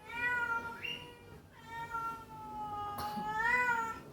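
Domestic cat meowing: two long, drawn-out meows, the second longer and rising in pitch near its end.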